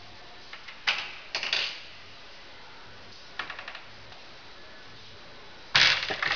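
Four short bursts of rapid clicking and clatter from small hard objects. The loudest burst comes near the end.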